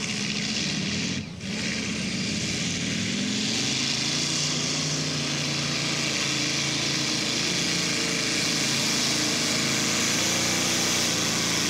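Modified pulling tractor's supercharged engines running at full throttle under heavy load while dragging the weight sled, a loud, steady roar. There is a brief drop about a second in, then it carries on unbroken.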